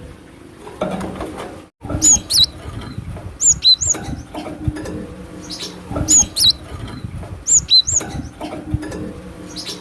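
Cinereous tit (glatik batu) singing: sharp, high whistled notes in quick pairs and threes, repeated every second or two. The sound briefly cuts out just before two seconds in.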